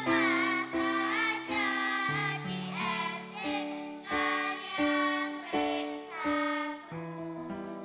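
Children's choir singing with instrumental accompaniment holding steady chords; the voices drop out near the end as a chord sustains.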